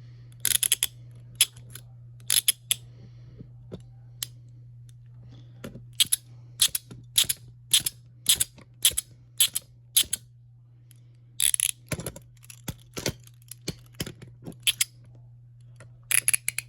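Nickel-plated steel handcuffs being worked: a series of sharp metallic ratchet clicks, about two a second through the middle, with a few brief bursts of chain and metal jangling. A steady low hum runs underneath.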